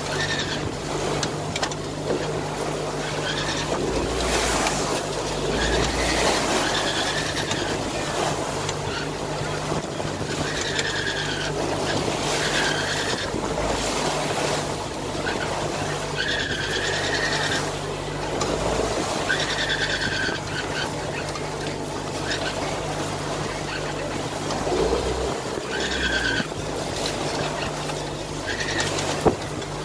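Wind and rushing, breaking water along a sailboat's hull under way in rough seas, over a steady low hum. A short, high, arching squeal recurs every few seconds.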